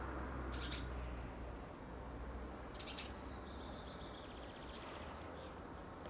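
Garden songbirds calling: short high chirps, and about halfway a high thin held note followed by a rapid trill, over a low steady background hum.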